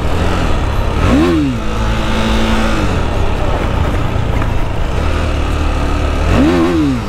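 KTM Duke 390's single-cylinder engine, on its stock exhaust, running with two quick throttle blips, one about a second in and one near the end, each a sharp rise and fall in pitch.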